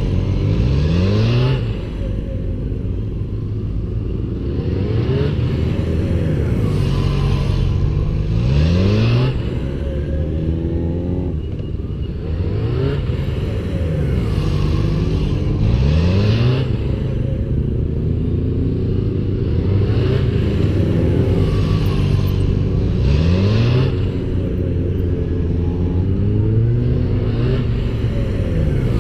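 Motorcycles riding tight circles close past, the engine pitch rising and falling with each pass every few seconds, as throttle is opened and closed.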